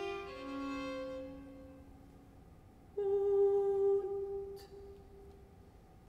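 Quiet, sparse contemporary music for soprano and string quartet: soft held notes fade out, then about three seconds in a louder held note starts suddenly and dies away over about two seconds. A faint tick is heard near the end.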